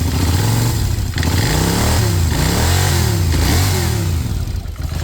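A 2009 Polaris Sportsman 850's parallel-twin engine runs with its transmission removed and is revved up and down several times in quick blips about the middle. It runs quietly with no knock now that the loose flywheel bolts are tightened: the knock was the flywheel, not a rod.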